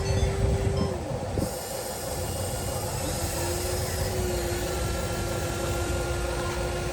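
Electric motor of a radio-controlled construction machine whining at a steady pitch over low, rough rumbling noise. The whine stops about a second in and starts again about two seconds later.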